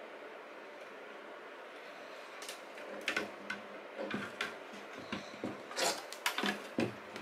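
Plastic clicks and knocks of an external hard drive's enclosure being pried apart and the bare drive being worked out of its housing. Quiet at first, then scattered sharp clicks from about two and a half seconds in, coming thickest near the end.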